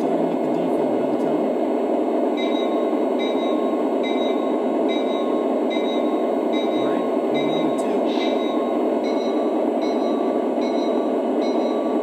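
Lionel SD70ACE model locomotive's onboard sound system playing a steady diesel idle rumble through its small speaker, the engine sound started up for a running session. A faint high chime repeats a little under twice a second from about two seconds in.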